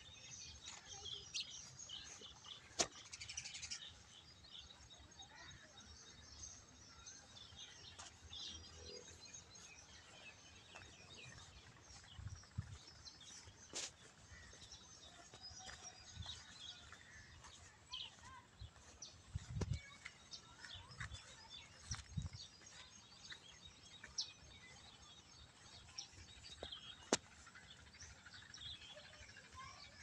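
Faint birds chirping and calling on and off, many short high chirps. A few sharp clicks and low thuds break in, the loudest thuds about two-thirds of the way through.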